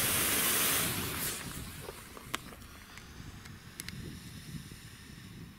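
Lit fuse of a Funke Superball 1 firecracker fizzing for about the first second, then only faint wind noise and a few light clicks while the fuse burns down.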